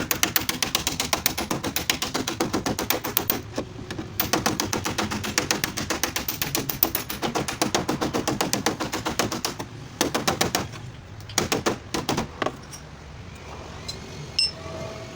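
A power tool rattling fast and evenly at about ten strikes a second, run for several seconds and then in two short bursts of about a second each near the end.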